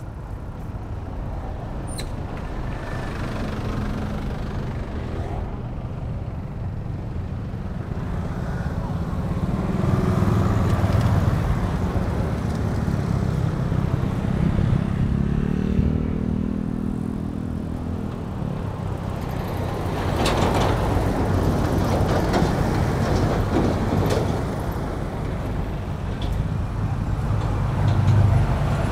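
Street traffic of motorcycles and scooters running and passing close by, a steady engine hum throughout. About halfway through, one engine climbs in pitch as it speeds up.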